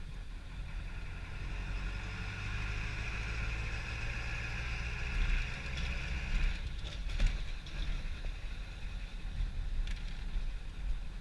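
An engine running with a steady whine that ends abruptly about six and a half seconds in, over a constant low rumble.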